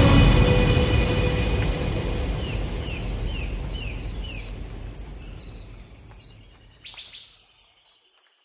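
Outdoor ambience fading out slowly: a low rushing noise with birds chirping. A run of five quick falling chirps comes about three seconds in, and a short louder call near the end.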